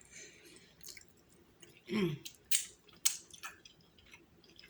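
Close-up eating sounds: a person chewing king crab meat with wet mouth noises and a few sharp clicks and smacks, plus a brief voiced hum about two seconds in.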